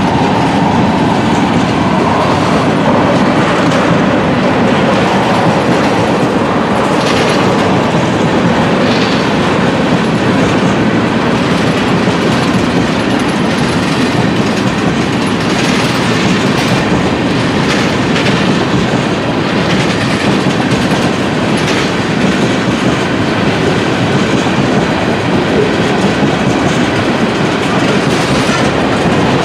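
Freight train of tank cars rolling past: a steady, loud rumble of wheels on rail with clickety-clack from the wheels passing over the track.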